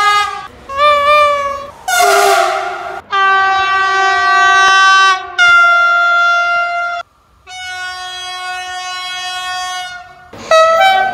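Locomotive horns in a string of about seven separate blasts, each at a different pitch. Some are short toots of about a second; others are held for two to three seconds.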